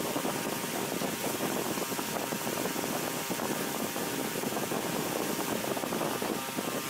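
Hand sanding: a sanding block with 120-grit paper scrubbed back and forth over body filler on a car bumper, a continuous rasping.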